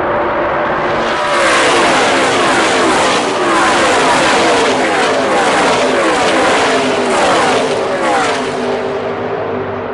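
A pack of NASCAR Camping World Truck Series trucks passing at racing speed, their V8 engines running loud, with many overlapping falling pitches as one truck after another goes by. The noise builds about a second in and fades near the end as the pack moves away.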